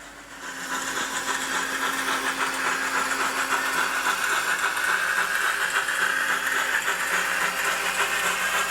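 Digital steam sound from an HO scale Heisler model's ESU LokSound 5 decoder, played through the model's small speaker: a loud, steady rush of steam hiss with a fast fluttering texture that starts about half a second in.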